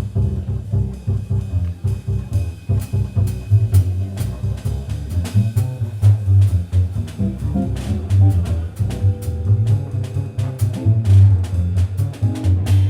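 Instrumental jazz from a guitar, double bass and drum kit, with no singing; the double bass is prominent in the low end under frequent drum and cymbal strikes.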